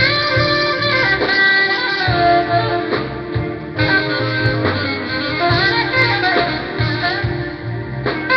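Live smooth jazz band playing, a melody line bending over a pulsing bass, heard through a mobile phone's microphone that cuts off the highest treble.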